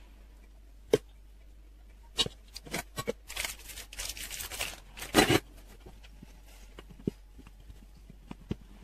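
Aluminium foil crinkling and tearing as it is peeled off a block of fondant, after a few light clicks and taps. A sharp knock comes about five seconds in, followed by scattered light taps.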